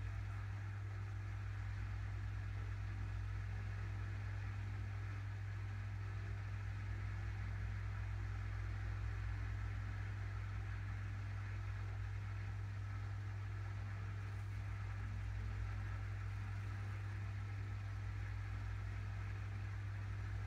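Steady low hum with a faint even hiss over it, unchanging throughout: background room noise, with no sound from the eyeliner itself.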